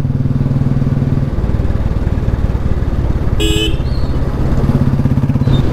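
Royal Enfield Bullet's single-cylinder engine running steadily while riding, with one short horn beep about three and a half seconds in.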